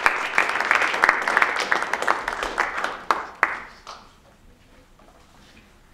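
Audience clapping and applauding, which dies away about four seconds in.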